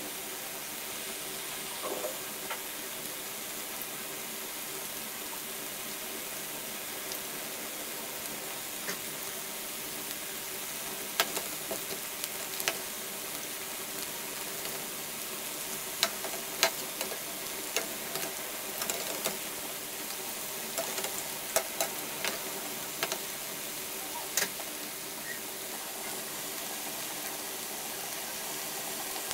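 Chicken pakoras deep-frying in hot oil in a metal wok: a steady sizzle, with sharp clinks and taps from a perforated metal skimmer turning them against the pan, clustered through the middle.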